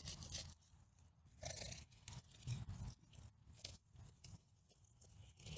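Matted roots of a root-bound cat palm being pulled and torn loose by hand: faint, irregular crackling and scratching.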